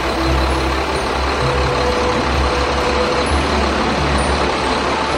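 Heavy truck engine running steadily with a low rumble and a few faint held whining tones above it.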